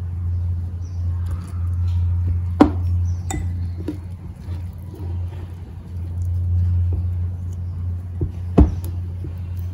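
Hands kneading maida flour and water into dough in a ceramic bowl, with faint rubbing and squishing and two sharp clinks against the bowl, about 2.5 s in and near the end. A steady low hum runs underneath throughout.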